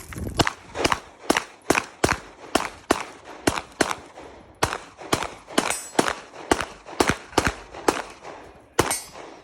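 Gunshots fired one after another in a fast, fairly even string, about two to three shots a second, each followed by a short echo: a competitor shooting a USPSA course of fire. The shots end shortly before the close.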